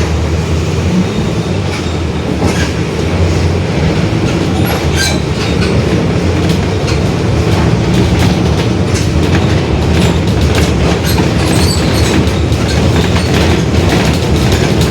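Mercedes-Benz OF-1721 Bluetec 5 bus running under way, its diesel and drivetrain giving a steady low drone with a growling rear differential, over frequent irregular rattles and clicks.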